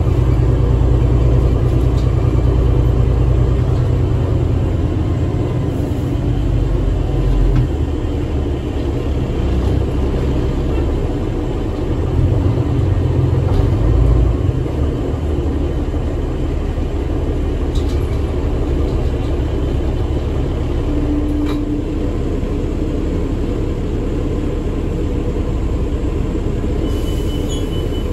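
2006 New Flyer D40LF diesel city bus heard from inside the passenger cabin while under way: a steady low engine and drivetrain rumble mixed with road noise. It is heaviest in the first few seconds and swells again about halfway through. A high electronic tone comes on near the end.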